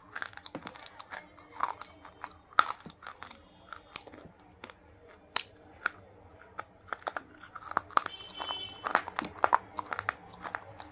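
Biting and chewing of a dry, crunchy, chalk-like bar, miked close to the mouth. Irregular sharp snaps and crunches come thicker near the end.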